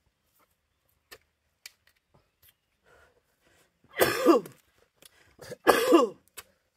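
A man coughing, two loud harsh coughs in the second half, each falling in pitch, with faint clicks and taps before them.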